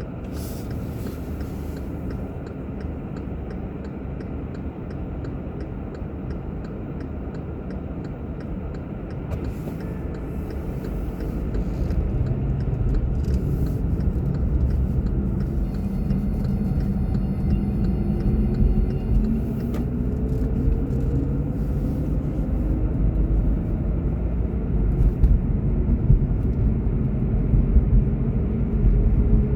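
Car driving: steady low road and engine rumble that grows louder about halfway through, with an engine tone rising in pitch as the car speeds up.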